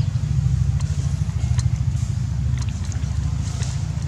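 A steady, low engine hum runs throughout, with a few sharp clicks over it.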